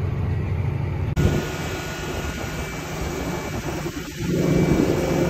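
Tractor's diesel engine running with a steady drone, the sound changing about a second in as the scene shifts from the cab to beside the tractor, and the low hum growing louder near the end.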